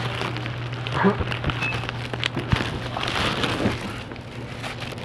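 Rustling and crackling with scattered light knocks and clicks, over a steady low hum.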